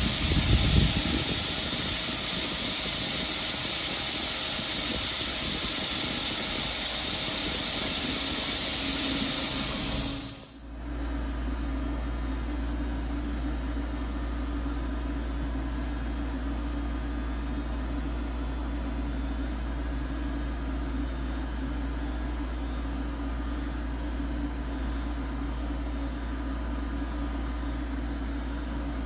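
Hwacheon Sirius 550 CNC vertical machining center running. A loud, steady hiss cuts off suddenly about ten seconds in and gives way to a steady low machine hum, which continues while the X-axis backlash is checked with a dial indicator.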